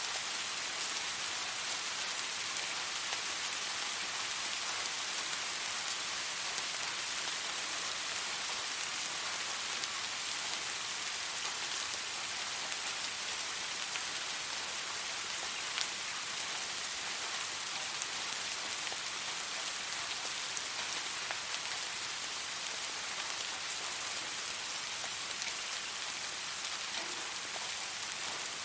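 Steady, gentle rain falling on a surface, an even hiss with scattered individual drops.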